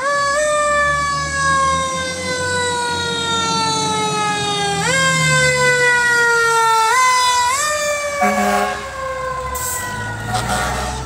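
Fire truck siren winding up quickly and then sliding slowly down in pitch, pushed up again about five, seven and seven and a half seconds in. It is followed near the end by a short steady horn blast and the truck's engine rumbling as it passes.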